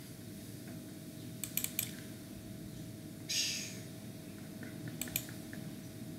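Scattered clicks from a computer mouse and keyboard: a quick run of three or four clicks about a second and a half in, a short scratchy burst a little after three seconds, and two more clicks near five seconds, over a faint steady hum.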